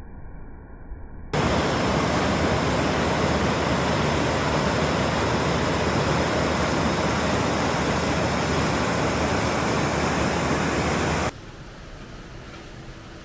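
Loud, steady rush of a waterfall pouring over volcanic rock. It starts abruptly about a second in and cuts off abruptly near the end, leaving a quieter rush of water.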